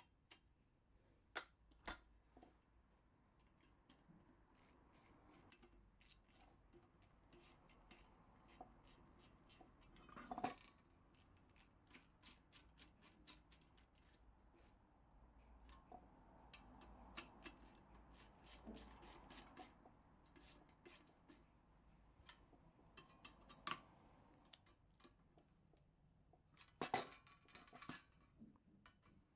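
Hand tools clicking and scraping on the metal parts of a Coleman 508A gasoline stove being taken apart: scattered faint metallic clicks and taps, with a louder clatter near the end.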